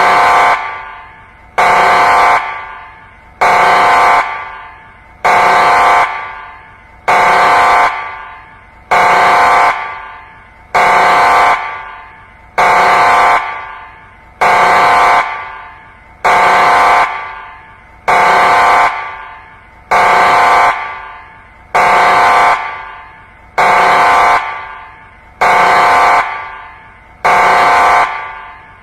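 Emergency alert alarm: a harsh, horn-like tone sounding in short blasts about every two seconds, each blast dying away in an echo before the next.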